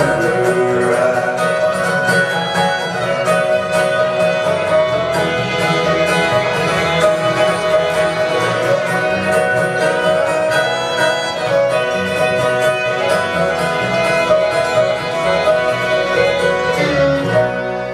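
Acoustic string band playing an instrumental passage, with the fiddle leading over strummed acoustic guitar and upright bass.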